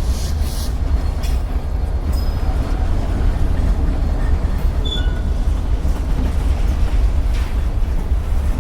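Norfolk Southern freight train rolling past at close range, a loud steady rumble with a few faint clicks from the wheels. There is a brief high wheel squeal about five seconds in.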